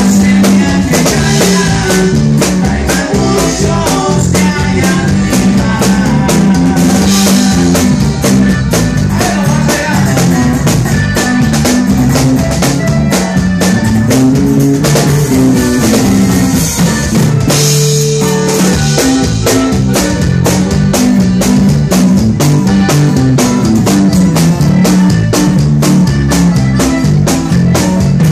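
Live band music: a drum kit keeping a steady beat under a moving bass line and other instruments, played loud.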